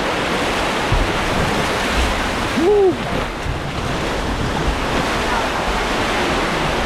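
Water rushing steadily down a water park slide channel, with wind noise on the microphone. About two and a half seconds in, a person gives one short yell that rises and falls in pitch.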